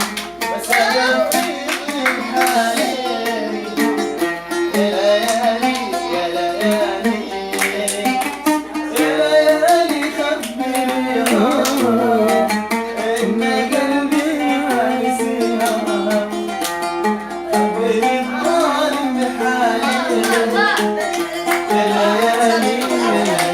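A man singing an Arabic song, accompanied by a plucked string instrument and steady hand percussion.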